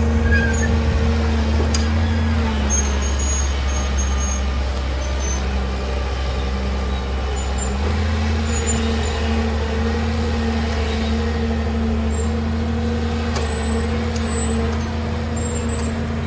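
Heavy diesel engine running steadily, its note dropping about two and a half seconds in and rising back about eight seconds in.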